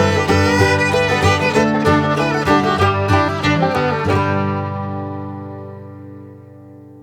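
Instrumental background music; the busy melody stops about four seconds in and a held final chord fades out.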